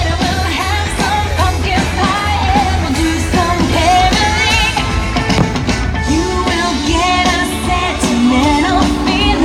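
Upbeat rock-and-roll-style Christmas song with singing over a steady bass line.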